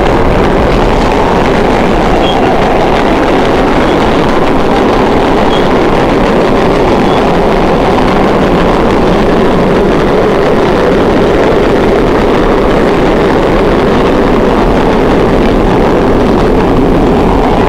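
Vintage R1–R9 subway cars running at speed through a tunnel, heard from inside the car: a loud, steady rumble and roar of wheels on rails and running gear.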